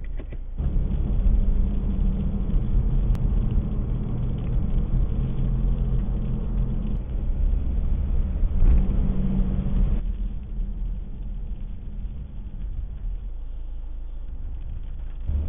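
Steady low rumble of a car heard from inside the cabin: engine and road noise. It gets louder about half a second in and drops back at about ten seconds.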